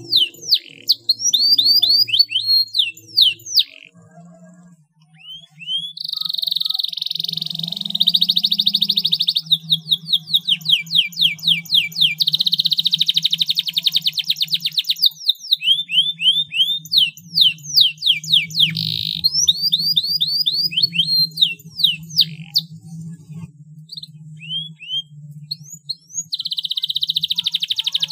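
Domestic canary singing: runs of fast, down-slurred chirps alternating with long, rapid rolled trills that each last a couple of seconds.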